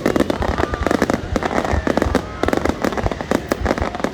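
Fireworks display going off in rapid, overlapping bangs and crackles, several a second with no pause.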